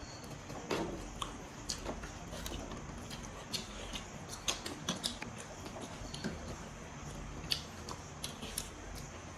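Close-up eating sounds of pork meat being chewed: irregular wet mouth clicks and smacks, a few a second.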